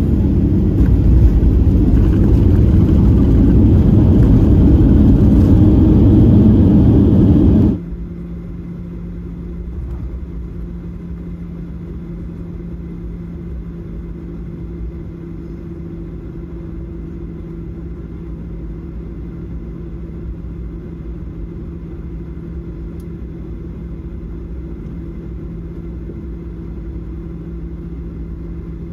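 Loud steady roar of a Boeing 737-800's CFM56-7B jet engines and rushing air, heard from inside the cabin over the wing, growing slightly louder. About eight seconds in it cuts off suddenly to a quieter, steady low hum with a droning tone.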